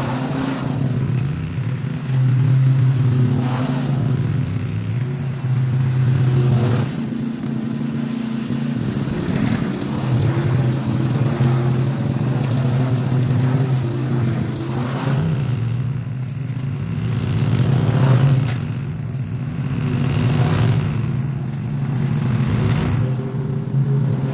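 Zero-turn riding mower engine running steadily, its note rising and dipping every few seconds as it works.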